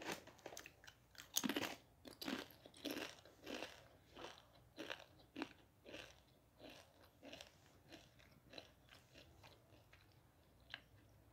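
Faint chewing of crunchy food close to the microphone, a steady run of crunches about every half second to second that fade toward the end, with one sharp click near the end.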